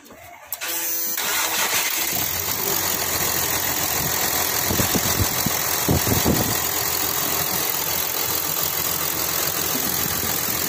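A 2012 Kia Mohave's diesel V6 starting, catching about a second in, then idling steadily. The belt tensioner has just been replaced, and the earlier noise from the engine is gone.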